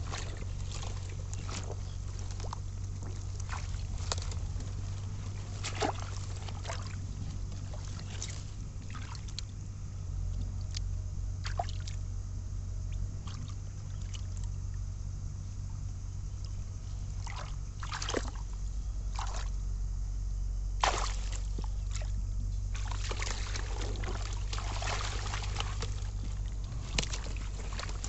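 Hands splashing and sloshing in shallow muddy water, with irregular splashes that come thickest about three-quarters of the way through, over a steady low hum.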